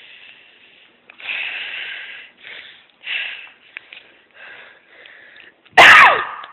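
A person's breathy, non-speech sounds: a run of short sniffs and gasping breaths, then a sudden loud vocal cry with a falling pitch near the end.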